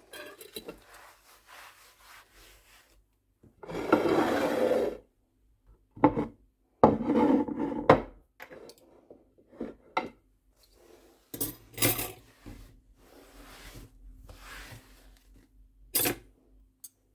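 Kitchen handling sounds: repeated scraping and rubbing with short clatters of dishes and utensils, two longer scrapes about 4 and 7 seconds in and sharp knocks near 12 and 16 seconds, over a faint steady hum in the second half.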